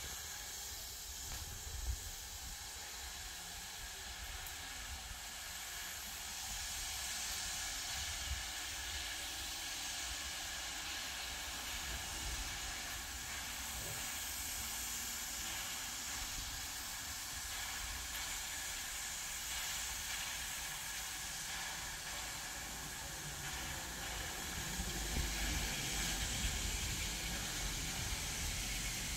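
Terrier steam tank locomotive approaching slowly in the distance under a steady hiss, with a low rumble that grows a little louder near the end.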